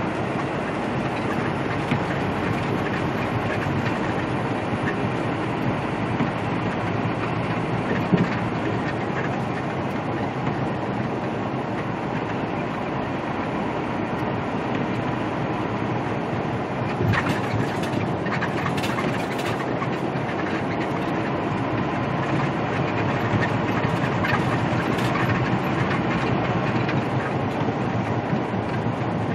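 Steady road drone inside a Peterbilt semi-truck's cab at highway speed: the diesel engine's low hum under tyre noise on wet pavement. A few brief knocks or rattles come a little past the middle.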